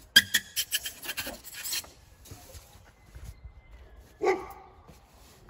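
Nudura ICF foam blocks rubbing against each other as a block is pressed down onto the interlocking teeth of the course below: a quick run of sharp scraping strokes in the first two seconds. A brief, louder pitched sound follows about four seconds in.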